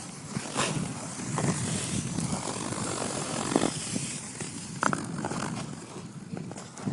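Ice skate blades scraping and gliding over ice, a run of irregular strokes over a steady hiss.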